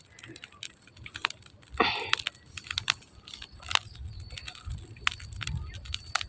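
Burning dry grass crackling with irregular sharp pops and snaps over a low rumble, with one longer rasping burst about two seconds in.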